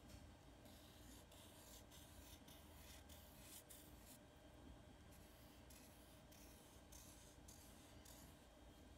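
Faint scratching of a black felt-tip permanent marker drawing on paper, in short repeated strokes as curved scallop lines are drawn.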